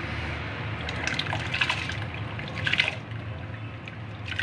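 Raw rice being poured from a bowl into a pot of bubbling jaggery syrup and chana dal. The syrup bubbles and splashes steadily, with louder rushes of grains and liquid about a second and a half in and again near three seconds.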